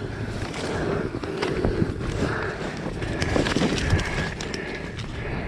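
Rustling and scraping from a player moving on foot, with irregular sharp clicks and wind buffeting the microphone.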